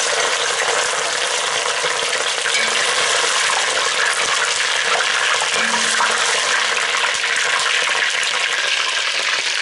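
A large piece of meat sizzling steadily in very hot refined sunflower oil in a kazan, with fine crackling spatters, as it sears to a crust.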